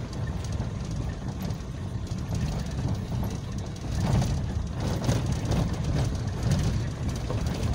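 Motor vehicle driving, with a steady low engine and road rumble.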